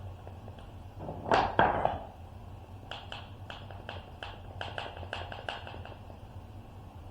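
Woodworking clamps being loosened and handled: a brief scrape about a second in, then a quick, uneven run of about a dozen light clicks.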